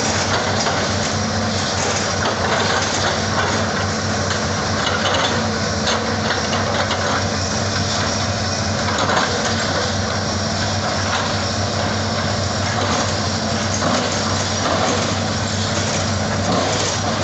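Hitachi excavator's diesel engine running steadily, with scattered cracks and knocks over it.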